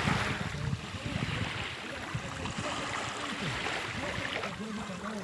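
Sea waves washing onto the shore, mixed with wind noise. The surf is loudest at the start, then eases to a steadier wash.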